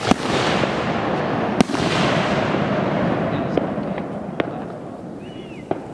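Aerial fireworks bursting: a sharp bang right at the start and a second about a second and a half later. A long noisy wash follows and slowly fades, with a few scattered small pops.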